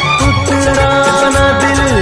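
Hindi film song music: a steady drum beat under held melody notes, with no words sung.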